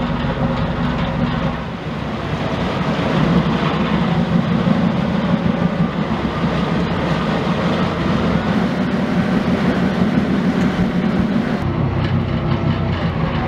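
Boat engine running steadily, heard from inside the cabin as a loud, low drone; the note shifts slightly about two seconds in.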